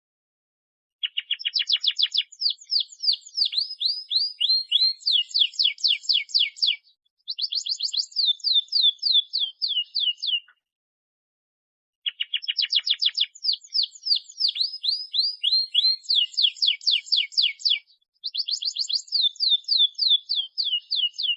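Domestic canary singing long, fast trilled phrases of rapidly repeated down-slurred notes. It sings two near-identical songs of about nine seconds each, with a break of about a second and a half between them.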